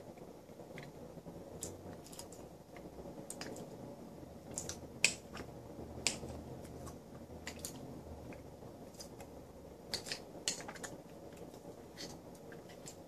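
Eating at a table: a spoon clicking and scraping against a handheld bowl in short, irregular taps, with chewing. The sharpest clicks come about five seconds in, about six seconds in, and around ten seconds in.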